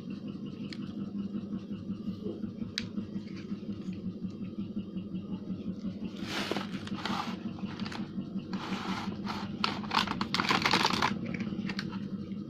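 Plastic toy parts and packaging being handled: scattered clicks, then bursts of rustling and scratching about halfway through and again near the end, over a steady low buzz.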